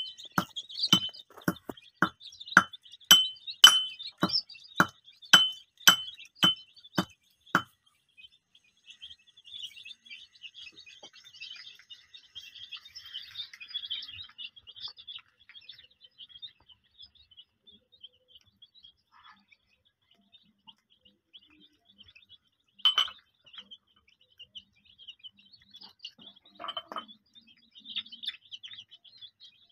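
A brood of young desi chicks peeping softly. For the first several seconds a sharp clink sounds about twice a second, then stops, and one more clink comes about three quarters of the way through.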